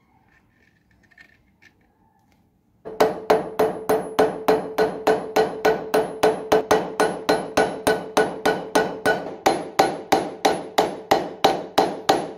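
Small hammer striking metal padlock parts during reassembly, likely peening a pin or rod. After a few faint clicks, rapid, even blows at about four a second begin some three seconds in, each with a short metallic ring, and they stop abruptly near the end.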